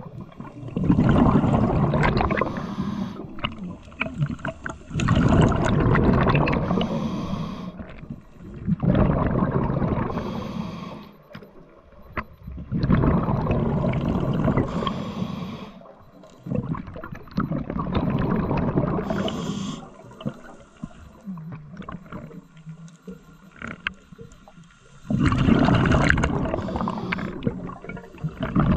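Scuba diver breathing through a regulator underwater: a long gurgling exhale of bubbles about every four seconds, each lasting two to three seconds, with quieter gaps for the inhales.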